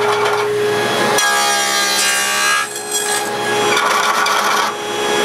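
A power tool running with a steady whine while cutting box joints in pallet-wood boards, making several cutting passes. The sound changes abruptly every second or so.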